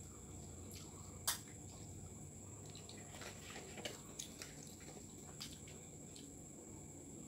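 Quiet eating sounds: fingers working rice on plastic plates, with small wet mouth sounds and light clicks. One sharper click about a second in, as a drinking glass is set down on the glass tabletop.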